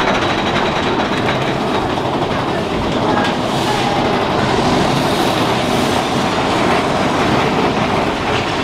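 Mine-train roller coaster cars rattling along the track with a steady, loud clickety-clack, heard from a rider's seat on board.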